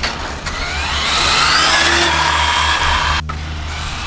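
Radio-controlled car's motor whining and rising steadily in pitch as the car accelerates along the track. It breaks off abruptly about three seconds in.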